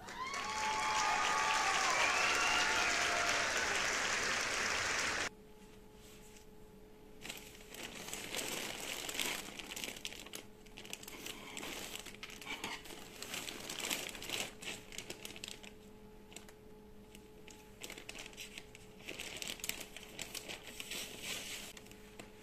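Plastic shipping mailer bag crinkling and rustling in irregular spells as it is handled and opened. It starts with about five seconds of a louder rushing noise with squeaky rising and falling tones, which cuts off suddenly.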